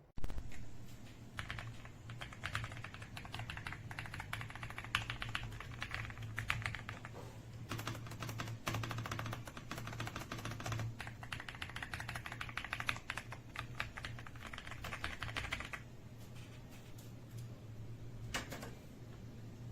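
Typing on the AJAZZ AK820 75% mechanical keyboard: fast runs of keystroke clicks for most of the time, with a short break about halfway, then a few stray keystrokes near the end. A low steady hum sits underneath.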